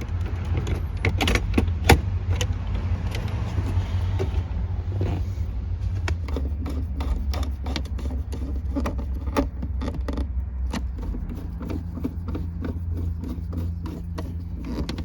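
Many light clicks and knocks from handling console trim parts and tools, coming more often in the second half, over a steady low hum.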